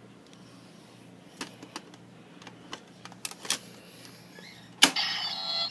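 Plastic clicks from a Kamen Rider Double Driver toy belt as its Gaia Memories are handled and slotted in. A loud snap comes about five seconds in, and the belt's electronic transformation sound effect starts.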